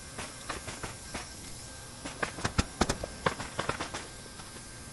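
Sharp, irregular taps and knocks of roofing work with hand tools on the roof, bunched together about halfway through.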